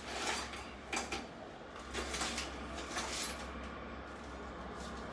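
A few short knocks and rustles of kitchen handling, about one a second in the first three seconds, over a low steady hum.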